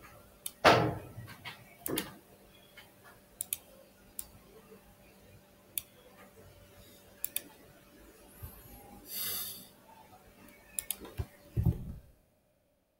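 Scattered computer mouse clicks and keyboard taps, with a heavier thump near the start and another near the end, and a short breath-like hiss about nine seconds in.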